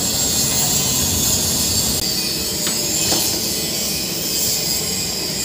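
Steady, even hissing noise, with two faint light clicks a little past the middle.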